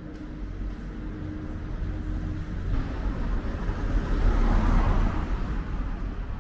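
A car drives past, its sound swelling to loudest about four to five seconds in and then fading away.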